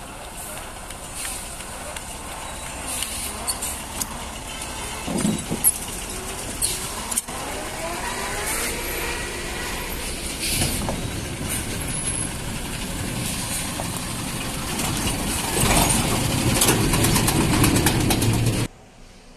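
Heavily loaded Ashok Leyland lorry's diesel engine labouring as it climbs slowly past, with a few short air-brake hisses. It gets louder as the truck comes close, then cuts off suddenly near the end.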